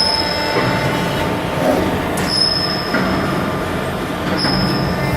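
Steady, loud machinery noise with a high-pitched whine that starts and stops three times over a lower steady hum.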